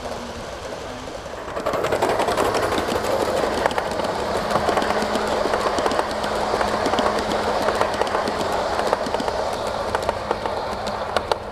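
Gauge 1 live-steam train's coaches rolling past on metal garden-railway track. The wheel rumble gets louder about two seconds in and is full of rapid clicking, with a steady low hum underneath.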